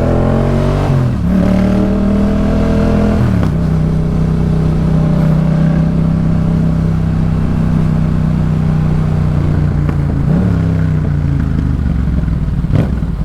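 2018 Yamaha MT-07's 689 cc parallel-twin engine through a Jeskap K4 full exhaust system. It pulls up through the gears with two shifts in the first few seconds, then holds a steady cruise, with a brief dip in revs near the end.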